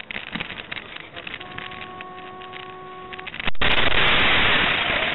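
A vehicle horn sounds one steady note for about two seconds over rattling van-cab road noise. Then, about three and a half seconds in, the head-on collision hits with a sudden loud crash and shattering windscreen glass.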